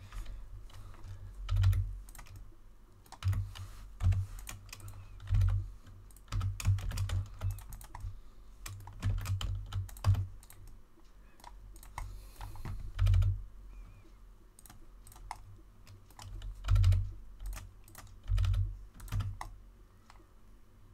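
Computer keyboard being typed on in short irregular bursts of keystrokes, many with a dull low thump.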